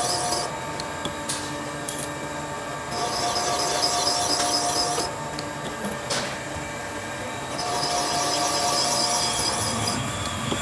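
Valve seat cutting machine running its cutter on the valve seats of a diesel cylinder head, a stage of valve seat resurfacing. It runs with a steady whir in three spells: briefly at the start, then for about two seconds from about three seconds in, then again near the end, with quieter gaps and a few clicks while the cutter is moved to the next seat.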